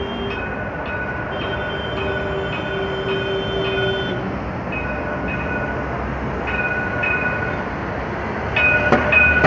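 Busy street traffic, with several high whining tones that come and go, and a louder clatter of clicks near the end.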